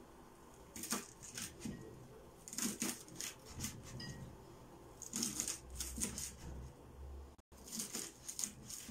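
Kitchen knife chopping cabbage finely on a wooden cutting board: runs of quick, light knocks of the blade through the leaves onto the board, in several short bursts with brief pauses between.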